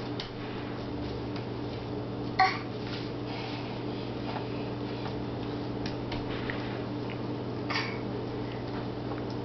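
Pots and jars in a kitchen base cabinet knocking and clinking as a toddler climbs in among them. There are two short clatters, a louder one about two seconds in and a smaller one near the end, with faint small clicks between.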